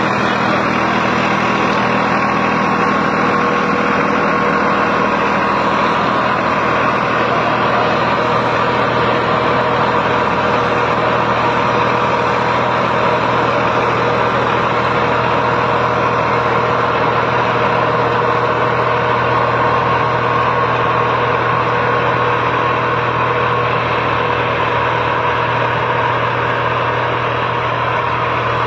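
New Holland 3600-2 tractor's diesel engine running steadily at a constant speed, with no revving or change in pitch.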